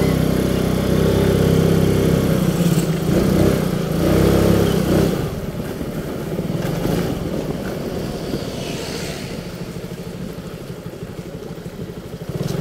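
Motorcycle engine running, louder and steadier for about the first five seconds, then easing to a lower, rougher rumble.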